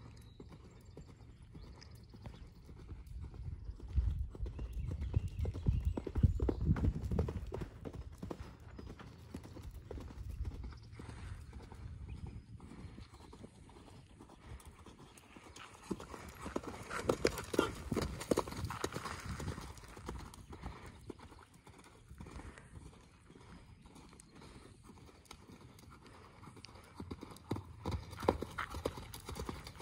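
Horse's hoofbeats at a canter on sand arena footing. They grow loud twice as the horse passes close, about four to eight seconds in and again around seventeen to twenty seconds, fade between, and rise once more near the end.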